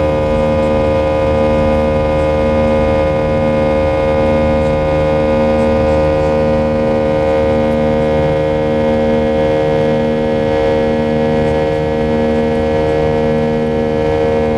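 IAE V2500 turbofan engines of an Airbus A320 running steadily in the climb, heard inside the cabin: an even whine made of several steady tones over a low drone that pulses slowly and regularly.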